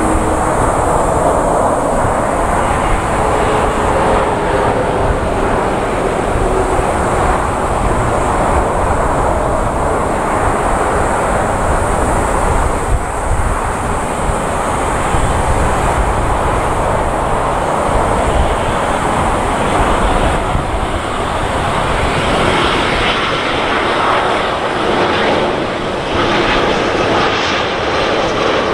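Boeing 787-9 Dreamliner on final approach, its two Rolls-Royce Trent 1000 turbofans running at approach power: a steady jet rumble and rush. It gains a harsher, higher hiss in the last few seconds as the airliner comes close overhead with its gear down.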